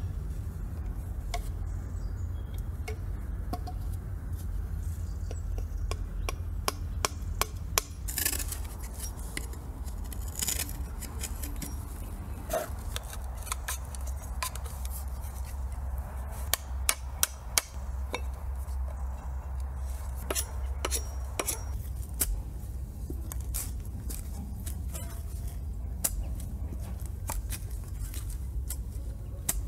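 Scattered sharp clicks, knocks and clinks of hand work, with clusters of them here and there, over a steady low rumble.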